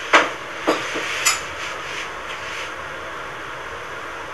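Three short knocks and rubbing sounds in the first second and a half as a person shifts in a leather desk chair, then a steady hiss of room noise.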